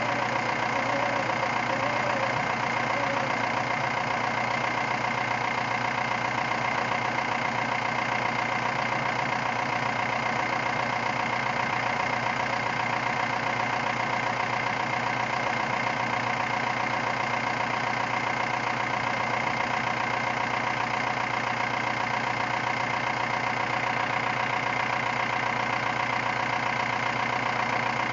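Cummins 4BT four-cylinder turbo diesel in a Jeep Wrangler idling steadily while its front winch hauls in the line on a stuck plow truck. The sound holds even throughout, with no change in pitch or level.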